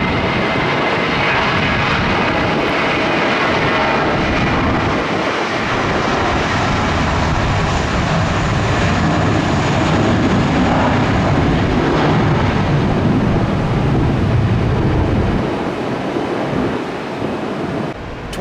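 Jet airliner's engines, loud and steady as the plane passes close by, easing off near the end.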